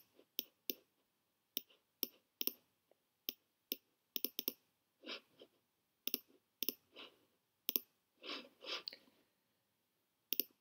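Computer mouse clicks, scattered and irregular, some single and some in quick pairs.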